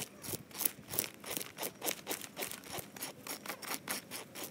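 A hand-held fish scaler with a serrated ring blade rasping scales off a bass in quick repeated strokes, about three or four a second, with the plastic bag under the fish crinkling.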